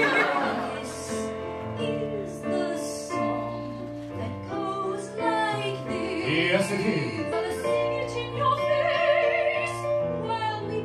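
A woman and a man singing a show-tune duet over live piano accompaniment, holding long high notes with a strong, wavering vibrato.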